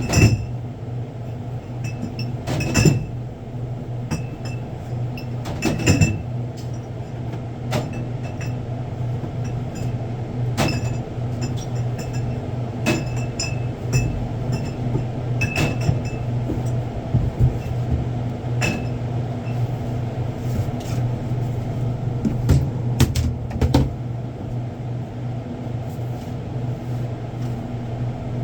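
Stock being unpacked and set on shelves: scattered knocks of boxes and goods being put down and light clinks of glass bottles, every second or two, over a steady low electrical hum.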